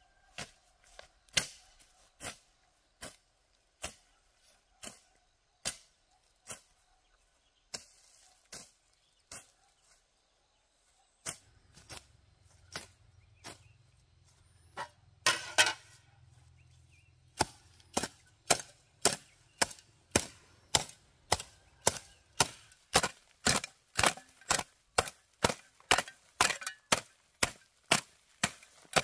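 A hoe blade chopping into grass and soil in a steady run of sharp strikes, about one a second at first. After a short pause the strikes quicken to about two a second and grow louder.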